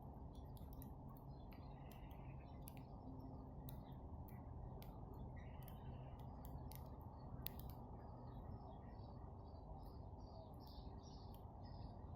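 Faint bird calls over a low steady rumble, with scattered sharp clicks. From about nine seconds in, a run of short high chirps comes two or three a second.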